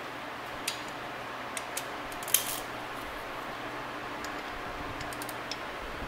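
A few scattered light metallic clicks and clinks of hand tools being picked up and handled, the sharpest about two and a half seconds in and a small cluster near the end, over a steady low hum.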